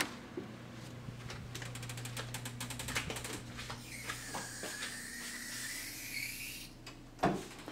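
Hotel room door opening and swinging shut: the lever handle of the keycard lock clicks, then comes a fast run of ratcheting clicks and a long squeak that dips and rises as the door moves on its closer, ending with a thud about seven seconds in. A steady low hum, likely the room's air conditioning, runs underneath.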